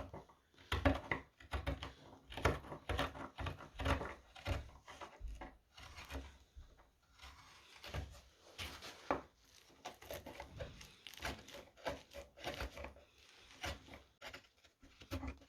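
Round carving chisels (gouges) paring wood on a spoon: a run of short, irregular scraping cuts with brief pauses between them.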